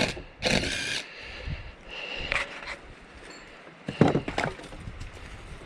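A few short knocks and scrapes on wood, the loudest a pair of knocks about four seconds in.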